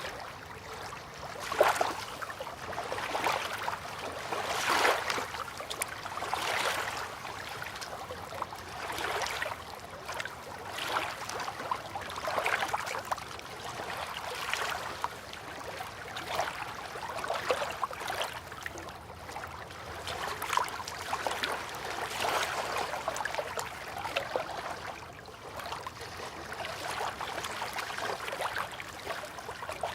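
River water lapping and splashing gently at the bank, in irregular small swells every second or two.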